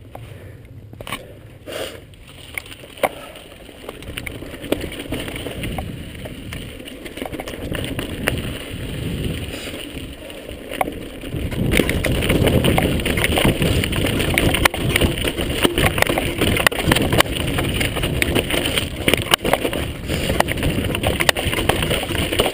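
Mountain bike riding down a rocky dirt trail: tyres rolling and crunching over gravel and stones, with a steady rush of noise and frequent sharp knocks and rattles from the bike. It gets louder about halfway through.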